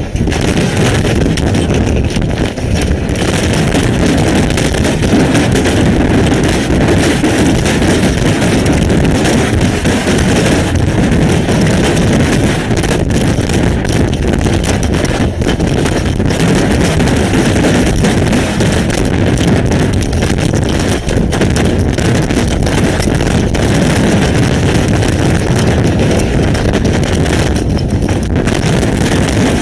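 Derecho storm winds buffeting an outdoor webcam's microphone: a loud, steady rush of wind noise that never lets up.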